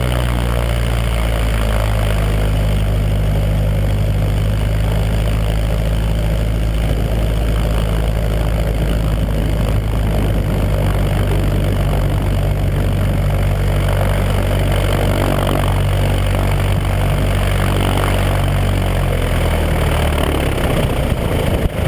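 Cessna 172's piston engine and propeller running steadily at low taxi power while the plane rolls along the ground. The pitch shifts slightly about a second in and again near the end.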